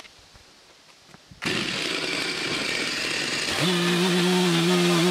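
Stihl chainsaw: its sound comes in abruptly about a second and a half in, then the engine revs up to full throttle with a steady high tone as the bar is set on a green butternut log to begin the cut.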